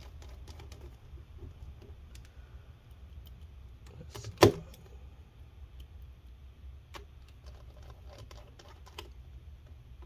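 Small screws being driven into a laptop hard drive's mounting with a small screwdriver: scattered light clicks and ticks of metal on metal and plastic, with one sharp knock about four and a half seconds in.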